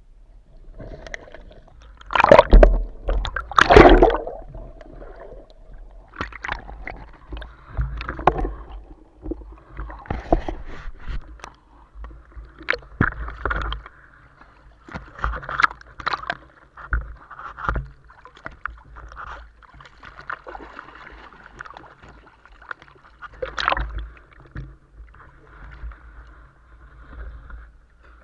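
Water sounds heard through a camera used in and around the water: gurgling and sloshing with irregular knocks and bumps. The two loudest bumps come about two and four seconds in.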